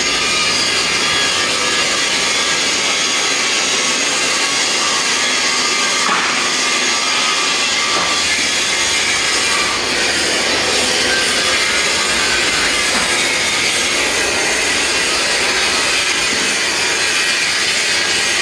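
Submerged arc welding machine running on steel fabrication work, a steady even hiss with a faint hum underneath and no breaks.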